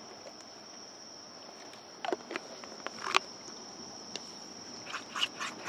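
A spoon clicking and scraping against a bowl as pancake batter is mixed, in a few scattered strokes about two, three and five seconds in. Under it runs a steady high insect chirring.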